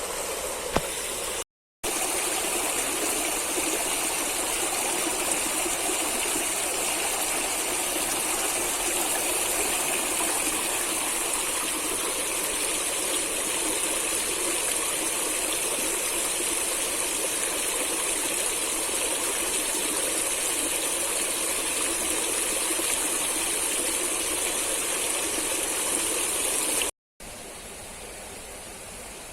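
Stream water running steadily, a continuous rushing wash of flowing water. It drops out briefly twice near the start, and is quieter after a short break about 27 seconds in.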